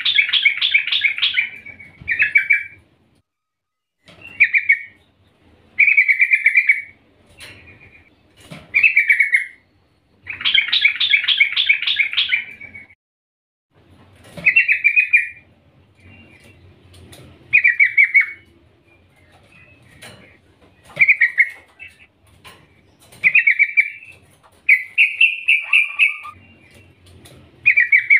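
Caged female yellow-vented bulbul (trucukan) calling, in repeated bursts of rapid, bubbling chattering notes every two to three seconds, with one longer run about ten seconds in. Between the bursts come a few sharp clicks and wing flutters as it hops and flies about the cage.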